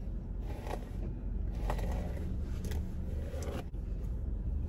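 Steady low rumble in a parked car's cabin, with a few faint rustles and crackles as hair is handled.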